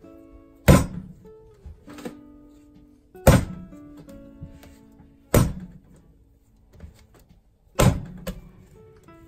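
High-hydration bread dough slapped down hard onto the worktop four times, about every two to two and a half seconds, the last slap followed closely by a lighter one, as it is kneaded by hand. Acoustic guitar music plays underneath.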